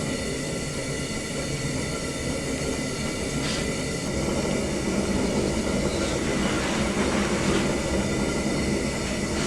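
Blacksmithing forge running with a steady, continuous rushing noise, with a couple of light taps in the middle.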